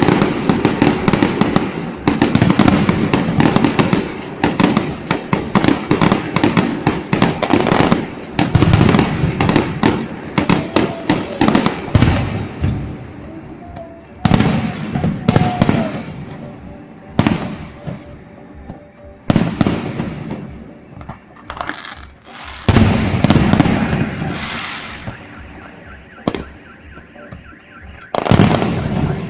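Fireworks display: a dense run of rapid crackling bangs for about the first twelve seconds, then separate loud booms every second or two with quieter gaps between them.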